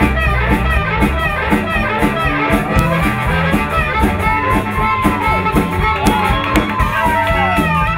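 Live electric blues band playing an instrumental passage: harmonica taking the lead over electric guitars, bass guitar and a drum kit keeping a steady beat, with long notes that bend in pitch in the second half.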